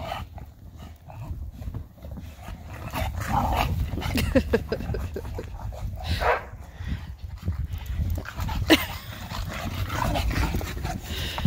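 Dog giving several short excited yips and whines over a steady low rumble.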